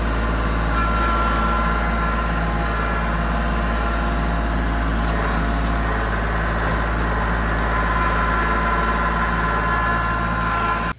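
A vehicle engine running steadily, a constant hum with steady tones over a strong low rumble.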